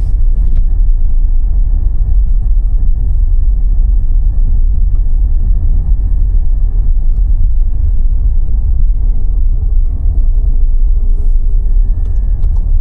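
Car being driven, heard as a steady low rumble of engine and road noise with a faint thin whine above it.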